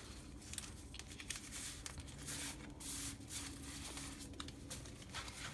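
Faint rustling and sliding of paper sticker sheets being gathered up and moved by hand, with a few soft taps.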